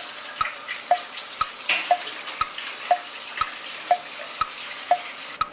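A music track's wood-block beat ticking about twice a second, alternating a higher and a lower click, over a steady hiss of water running at a kitchen sink; the hiss stops near the end.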